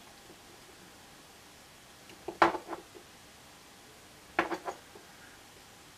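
Two short clusters of clicks and knocks, about two and a half and four and a half seconds in, each with a brief ring: handling noise as a hand works the oscillator's coarse-tuning potentiometer among the bench gear.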